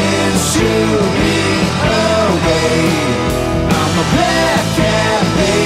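Recorded blues-rock song played by a full rock band, with a melody line that bends up and down in pitch over a continuous bass and drum backing.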